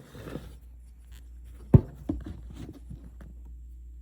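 Handling noise of a camera or phone being moved and set in place: scattered knocks and rustles, with one sharp knock a bit under two seconds in, over a steady low hum.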